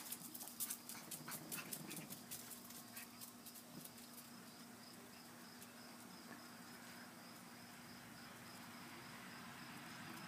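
Steady, high insect chirping, pulsing evenly. Over the first four seconds, light clicks and taps come close up and thin out.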